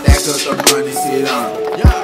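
Hip hop backing music: a beat with a deep bass hit that falls in pitch right at the start and another near the end, and a sharp snare between them.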